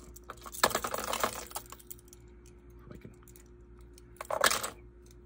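Hard plastic crankbaits and their hooks clicking and clattering against each other and a plastic tackle box as they are picked out by hand. There is a flurry of clicks in the first second or two, scattered clicks after, and another burst near the end.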